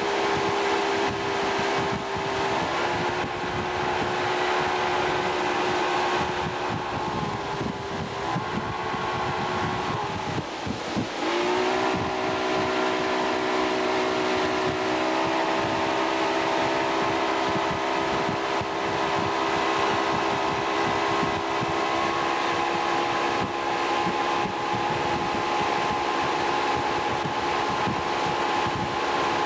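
Motorboat engine running steadily at towing speed, over a rush of wind and water. About eleven seconds in, its note dips sharply and then climbs back.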